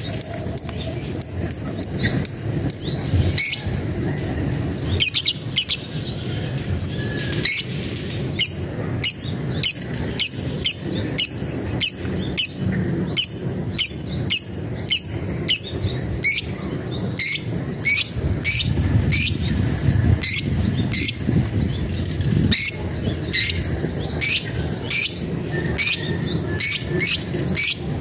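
A labet, the bird known by that Indonesian name, giving its challenge call to a rival: a long run of short, sharp chirps, sparse at first and then about two a second. A steady high insect drone runs underneath.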